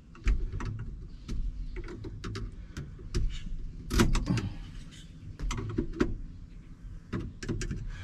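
Irregular metal clicks and scrapes from a lock plate compressor tool and the steering column of a 1983 Chevy C10 as the lock plate is pressed down and the lock ring is worked onto the steering shaft.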